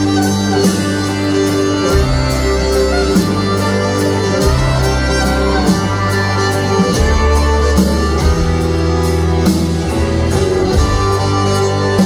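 Live country band playing an instrumental passage: fiddle melody over guitars, bass and a steady drum beat, with no singing yet.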